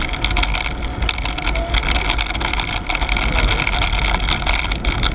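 Wind rushing over the microphone of a bike-mounted camera while riding, a steady low rumble, mixed with bicycle tyre and road noise.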